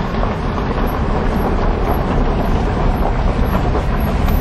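Steady rumble of wind and road noise heard from inside a slowly moving car.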